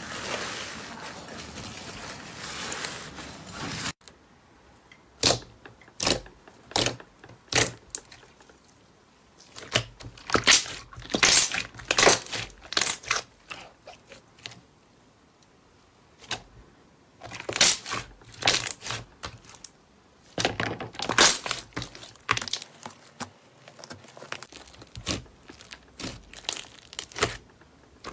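Slime being squeezed and poked by hand, giving clusters of sharp crackling pops and clicks with short quiet gaps between them. A steady hissing rustle fills the first few seconds before an abrupt change to the crackling.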